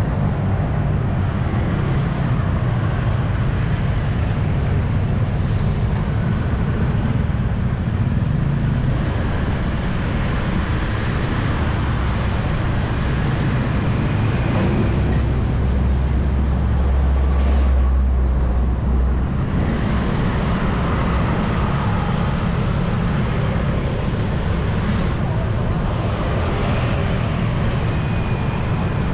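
Saigon street traffic heard from a bicycle: a steady mix of motorbike and car engines. A deeper rumble swells for a few seconds past the middle.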